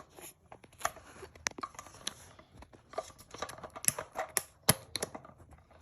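Irregular small clicks and short scrapes of plastic and rubber parts being handled: a dual-flush toilet valve's rubber seal, flipped over to cure a leak, being fitted back onto the valve.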